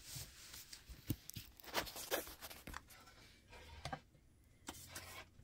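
Quiet room noise with a faint low hum and a few soft, scattered clicks and taps.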